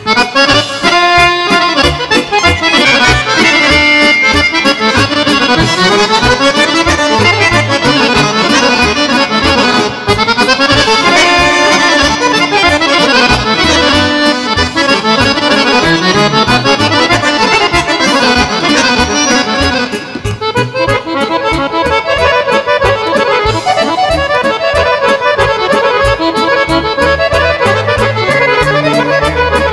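Two button accordions playing a fast Serbian folk tune together, full of quick rising and falling runs, over a steady beat from the band behind them.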